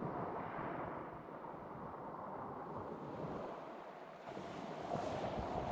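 Small sea waves lapping and washing over a pebble shore at the water's edge, growing louder near the end as a wave comes in.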